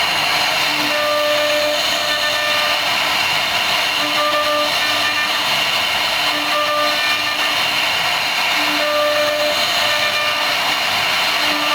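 CNC router's spindle cutting a wooden panel: a steady, loud whirr, with a short whining tone that comes and goes every couple of seconds as the machine works.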